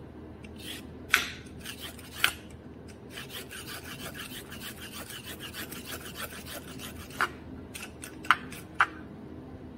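Vegetable peeler scraping strips off a raw carrot in quick, repeated rasping strokes, with a few sharper clicks.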